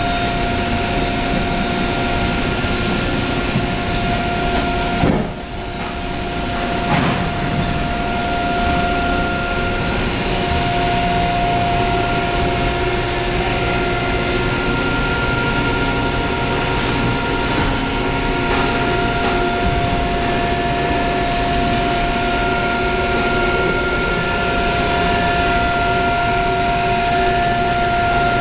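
Injection molding machine running: a steady mechanical hum and noise with a high whine. The level drops suddenly about five seconds in and builds back up over the next couple of seconds.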